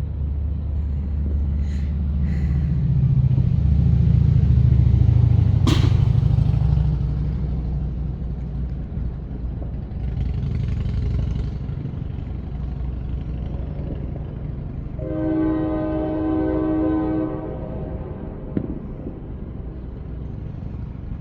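A steady low rumble, loudest a few seconds in, with a single sharp firecracker bang about six seconds in. Around fifteen seconds in, a horn with several tones together blows for about two and a half seconds.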